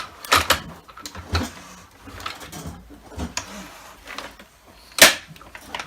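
Clicks and knocks of a Dyson DC25 vacuum cleaner's plastic parts being handled and fitted back together, irregularly spaced, with one sharp loud knock about five seconds in.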